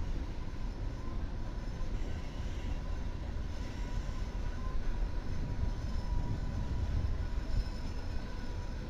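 Freight train of tank cars and open-top hopper cars rolling past on a curve: a steady rumble of steel wheels on rail, with a thin, steady wheel squeal over it.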